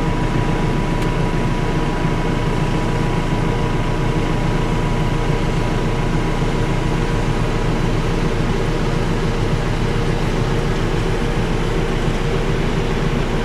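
Steady, unbroken drone of farm machinery engines heard from inside a tractor cab, with a sugarcane harvester cutting and its elevator loading a haul-out bin alongside.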